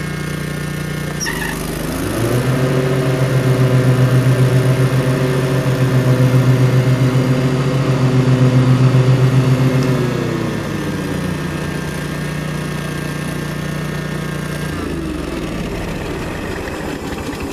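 Kawasaki 18.5 hp V-twin on a John Deere WH52A walk-behind mower running. It is throttled up about two seconds in, held at the higher speed, brought back down around ten seconds in, and settles lower again near the end.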